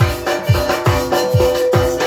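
Dance music: a booming bass drum beats steadily, a little under three strokes a second, under a melody line.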